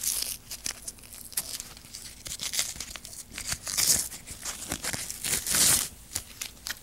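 Crinkling and rustling of material being handled, with many small clicks and knocks, and louder rustles about four seconds in and again at about five and a half seconds.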